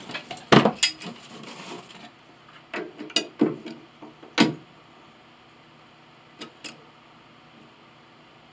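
Knocks and clanks of a metal C-clamp being picked up and set over a freshly glued wooden piece on a piano pinblock: a cluster of sharp knocks in the first half, the loudest about half a second in, then two lighter taps after six seconds, over a faint low hum.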